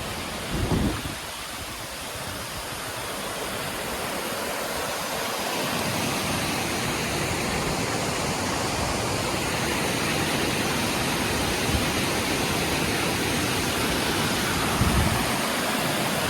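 Small waterfall spilling below a lake dam, a steady rush of falling water, running with plenty of water after overnight rain. The rush swells louder a few seconds in, and two brief low thumps come near the start and near the end.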